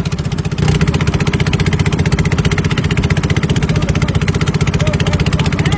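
Small engine running steadily with a fast, even chugging, stepping up louder about half a second in.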